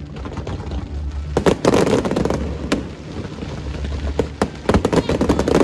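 Aerial fireworks bursting: many sharp bangs and crackles, in a dense flurry about a second and a half in and another near the end, over a low rumble.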